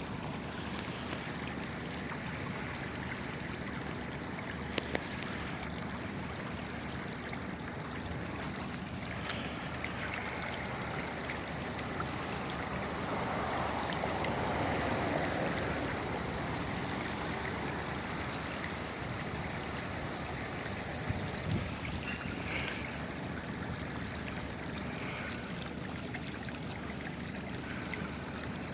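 Water from leaking underground water lines welling up through the street pavement and running off, a steady rushing flow that swells louder for a few seconds near the middle. A couple of brief knocks sound partway through.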